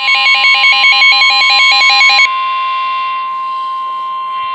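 Electronic alert tones of an Emergency Alert System broadcast: a rapid run of repeating synthetic beeps, about six repeats in two seconds, that cuts off suddenly, leaving a steady single tone that holds on.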